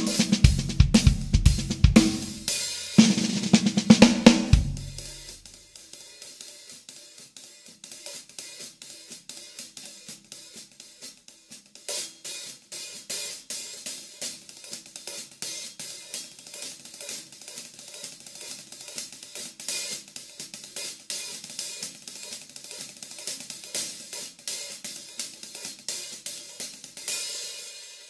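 Pair of 1970s Zildjian 14-inch hi-hat cymbals played with drumsticks. For the first few seconds they drive a full groove with snare and bass drum. After that the hi-hats play alone, softly and in a steady rhythm, getting louder about halfway through, then swell briefly and die away at the end.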